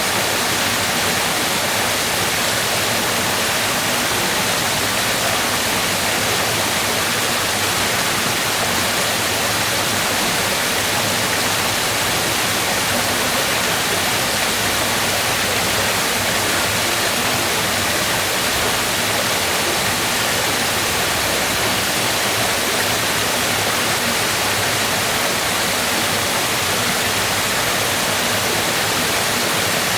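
Waterfall: falling water making a steady, even noise.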